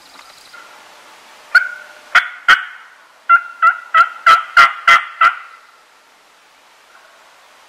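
Turkey call worked by a hunter, giving hen yelps to call gobblers in: three separate yelps, then a quicker run of seven, about three a second, each with a sharp, raspy start.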